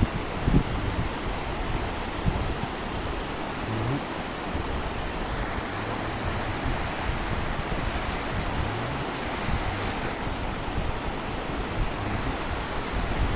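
Steady rush of a mountain stream's flowing water, with gusts of wind buffeting the microphone in low thumps.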